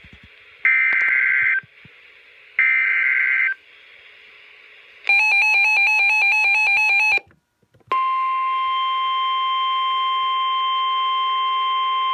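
NOAA Weather Radio alert through a weather radio receiver. First come two short bursts of screechy digital data tones (the SAME alert header), then about two seconds of rapidly alternating beeps. From about eight seconds in comes the steady warning alarm tone, signalling that a severe thunderstorm warning follows.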